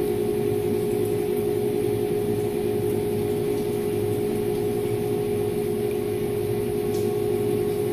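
Haas CNC vertical mill running, its spindle turning a center drill that feeds slowly down into steel: a steady machine hum with a constant whine.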